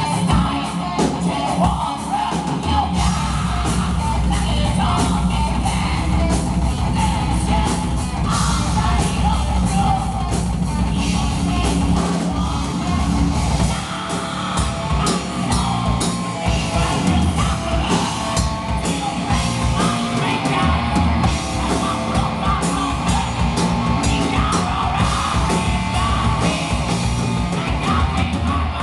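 Live heavy metal band playing: electric guitar, bass guitar and a Pearl drum kit, with vocals over them.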